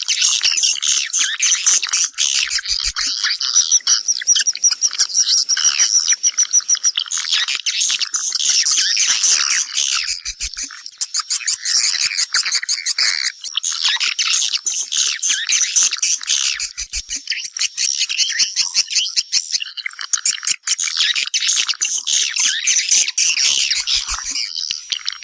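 Swiftlets twittering: a dense, unbroken chorus of rapid chirps and clicks. These are swiftlet calls of the kind used to draw the birds back to nest.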